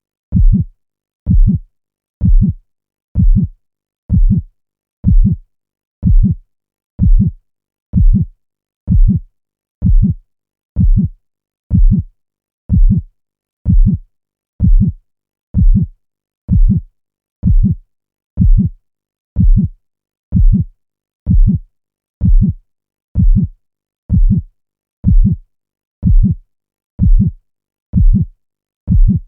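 Heartbeat sound effect on a loop: a steady lub-dub double thump about once a second, low and heavy, with silence between the beats.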